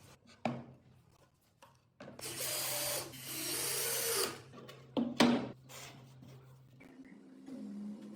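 Tool work: a small power tool runs for about two seconds, then two sharp knocks, then light rubbing.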